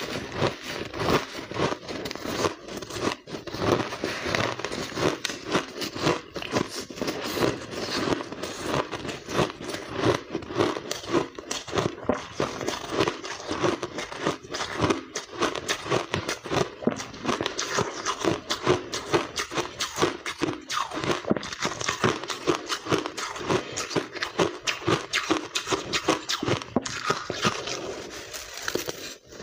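Close-up biting and chewing of finely blended white ice: a dense, continuous run of rapid crisp crunches and crackles.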